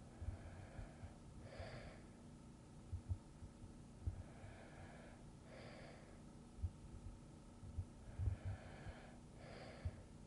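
A person breathing slowly and softly in sleep. There are three breaths about four seconds apart, each a longer gentle draw followed by a short, stronger puff, with faint low thumps scattered underneath.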